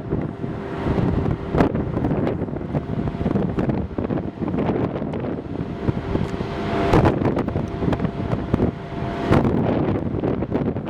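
Wind buffeting the microphone in uneven gusts, over a faint steady hum that fades in and out.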